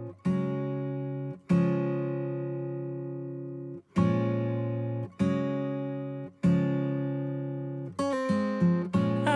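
Background music: an acoustic guitar strums slow single chords, each left to ring out and fade, and the strums come quicker near the end.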